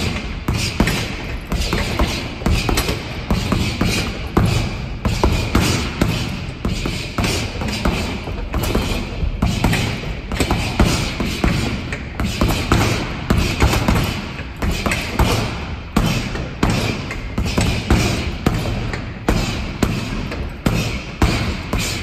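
Leather Everlast Powerlock 2 boxing gloves punching a heavy bag in fast combinations: a string of sharp thuds, several a second, with short gaps between flurries.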